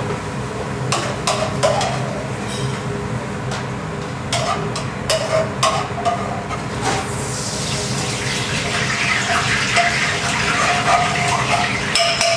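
Commercial kitchen gas burner running with a steady roar, with a few light metal clinks of pan and utensils. From about seven seconds in, a louder rushing hiss builds up and carries on.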